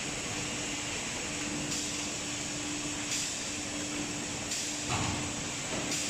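Machinery of an automatic plywood hot press line running. There is a steady hum with a high hiss, broken by several short mechanical knocks about every second and a half, the loudest one near the end.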